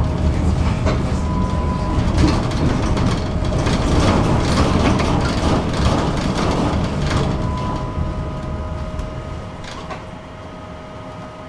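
Tram running on its rails: a low rumble with a steady electric whine and short squeals, dying away about eight to ten seconds in as the tram slows to a stop, with a few clicks after.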